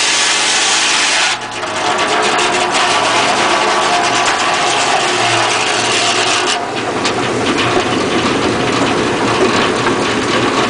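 Circular sawmill blade finishing a cut through a pine log: the loud, high noise of the blade in the wood stops suddenly about a second in. Then the mill's engine and the blade run on without load, with knocks and rattles and a hiss that rises again about halfway through.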